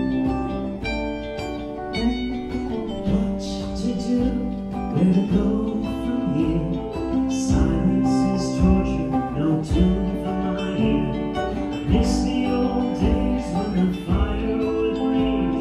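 Live band playing a song in waltz time: electric and acoustic guitars, keyboard and congas, with singing.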